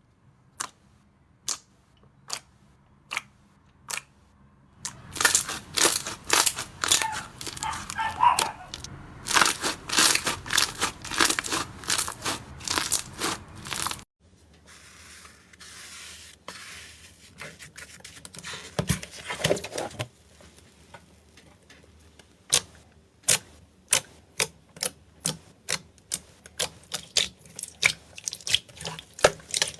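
Crisp crackling and crunching of something brittle being pressed and crushed by hand. Single sharp snaps come a few a second at first, then run together into dense crackling. After a sudden cut about halfway, it is softer for a few seconds, and then the separate snaps return.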